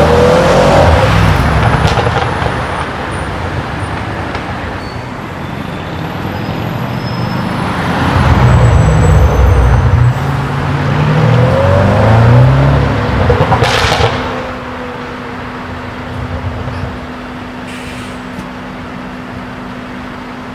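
Tuned 4.0-litre twin-turbo V8 of an ABT Audi RS7-R accelerating hard in several bursts, its exhaust loudest about 8 and 12 seconds in, with revs rising through the gears. A sharp crack comes about 14 seconds in, and after that only quieter traffic with a steady hum.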